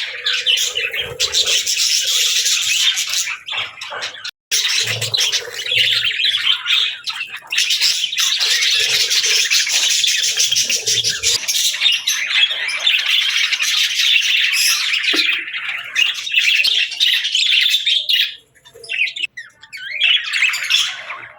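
Budgerigars chattering and chirping in a dense, rapid, high-pitched stream, with a brief break about four seconds in and a few short lulls near the end.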